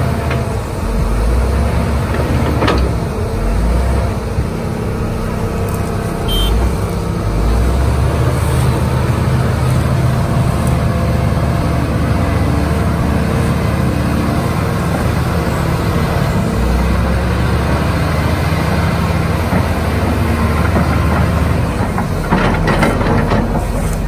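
Hitachi hydraulic excavator's diesel engine running steadily under load as it digs soil, with a few brief clanks.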